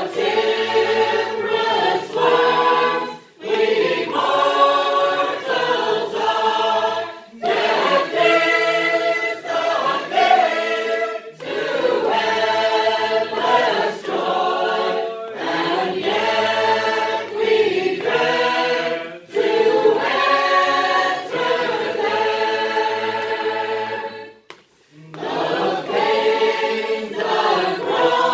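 Sacred Harp shape-note singing: a mixed group of men and women singing a four-part hymn tune a cappella. The phrases break briefly about every four seconds, with a longer gap a few seconds before the end.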